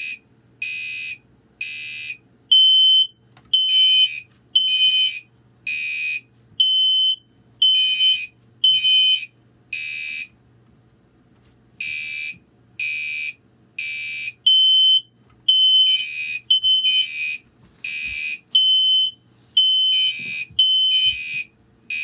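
A Gentex Commander 3 fire alarm horn and a First Alert smoke alarm sounding together, each in repeating groups of three beeps: the horn a buzzy beep, the smoke alarm a higher, purer tone that joins about three seconds in. The horn is running on 12 V DC instead of its rated 24 V, which the owner says makes it quieter than the smoke alarm.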